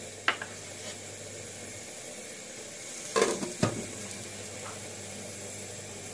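Pot of vegetable soup simmering on a gas hob, a steady bubbling hiss, with a knock near the start and a brief clatter of knocks about three seconds in.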